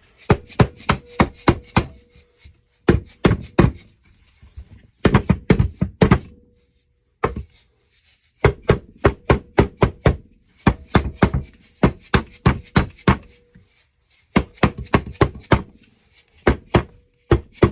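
Dead-blow sand mallet striking the case of a small engine, in quick runs of blows about four a second with short pauses between them, to knock the stuck crankcase cover loose. Some blows leave a faint ring in the metal.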